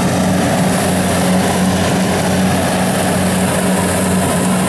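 Rice combine harvester running steadily as it cuts: an even engine drone with no change in speed.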